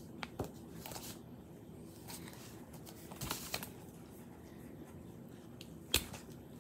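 Quiet room tone with scattered handling noises: a few light clicks and rustles, a short run of scraping about three seconds in, and one sharper knock about six seconds in.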